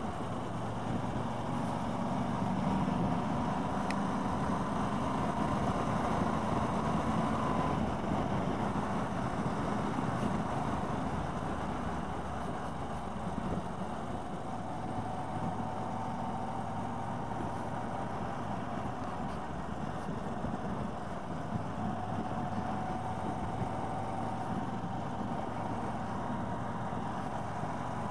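Motorcycle engine running at a steady cruise, with wind and road noise over it. The engine note drifts gently in pitch and is a little louder for several seconds before easing off a touch.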